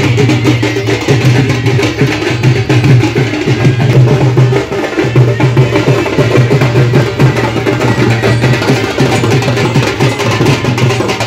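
Drum-led percussion music with a busy, steady beat.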